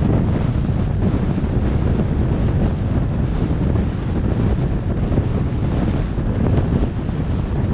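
Steady low wind rumble on the microphone of a camera mounted on a moving vehicle, an even blowing noise with no engine tone or other events standing out.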